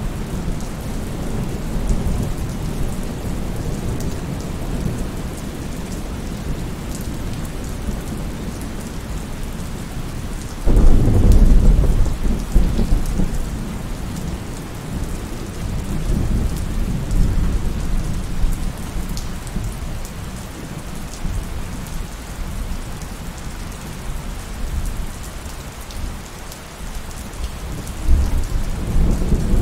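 Steady rain with low rumbling thunder. A loud clap of thunder breaks in about eleven seconds in and fades over a couple of seconds, and another rumble comes near the end.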